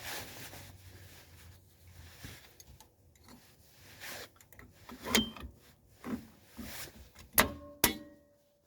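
Steel drum-brake hardware being handled: light rubbing and scraping, then several sharp metal clinks, the loudest two close together near the end and each ringing briefly.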